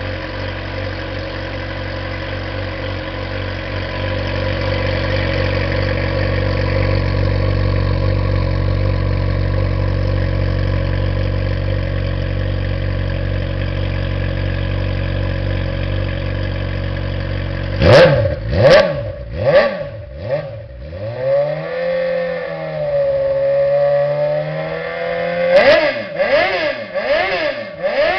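Suzuki GSX-R750 SRAD inline-four idling steadily through an aftermarket Hurricane sport exhaust. About eighteen seconds in come several sharp throttle blips, then a longer rev that wavers in pitch, then a quick run of blips near the end.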